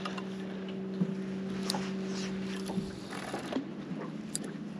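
Small boat's motor humming at a steady pitch, stopping about three seconds in, with water lapping and a few light clicks.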